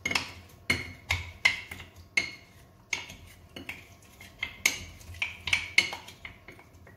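Wooden spoon muddling mint, lime and brown sugar in a glass: about a dozen knocks against the bottom of the glass, one or two a second, each with a short glassy ring, crushing the mix into a paste.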